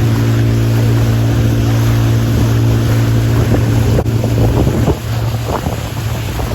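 Motorboat engine running at a steady pitch, its low hum carrying throughout, under the rush of wind on the microphone.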